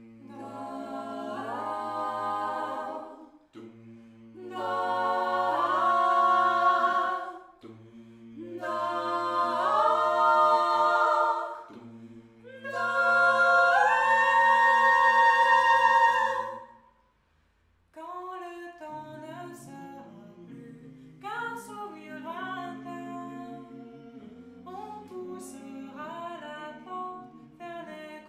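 A six-voice mixed a cappella jazz ensemble singing close harmony: four long held chords that swell, each followed by a short breath. After a brief pause about two-thirds in, a quieter passage of shorter, moving notes.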